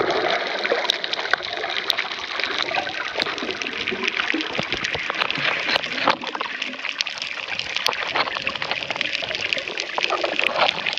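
Water sloshing and splashing close around the microphone while snorkeling, a steady rushing with many small crackles and pops.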